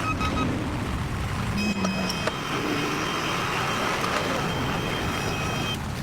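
Heavy diesel construction machinery running steadily with a low rumble, a few reversing beeps right at the start, and a thin high-pitched squeal or whine from the machine's working parts from about a second and a half in until near the end.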